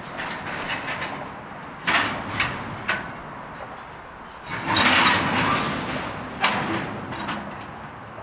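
Freight cars clanking during switching: a few sharp metallic bangs about two seconds in, a longer rattling clatter about halfway through, then another bang.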